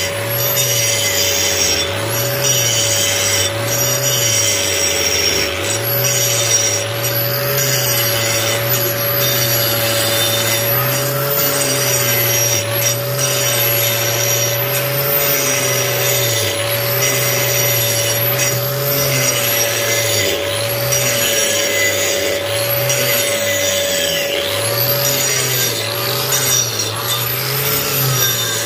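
Angle grinder fitted with a dust shroud grinding a concrete floor, running continuously, its pitch wavering up and down as it is pushed over the surface.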